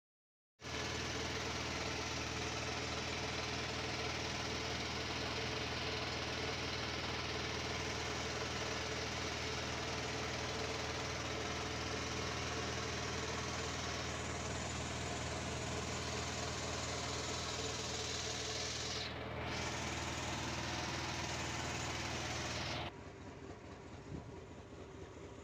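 An engine running steadily at an even speed, starting abruptly about half a second in. Near the end it gives way to a quieter, rattling vehicle sound.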